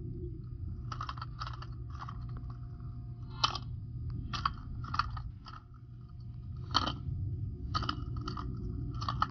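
Muffled underwater rumble heard through a submerged camera, with about eleven sharp clicks at irregular intervals.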